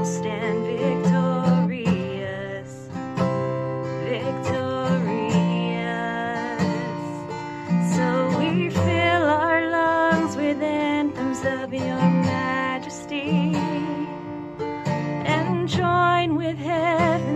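A woman singing a slow worship song with vibrato to a strummed acoustic guitar.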